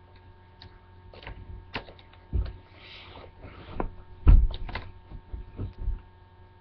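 Scattered thumps and knocks of objects being handled and set down, the loudest a little past four seconds in, with a brief rustle around the third second. A steady electrical hum runs underneath.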